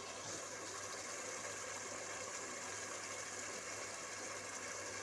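Cooked tomatoes frying in a large metal cooking pot (sufuria), giving a steady, even sizzling hiss with a faint low hum beneath it.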